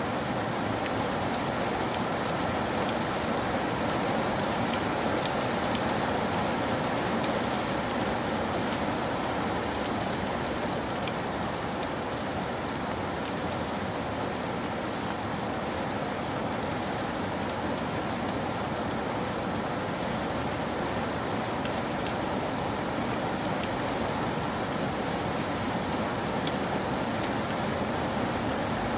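Steady rain falling, with many individual drops ticking on a surface.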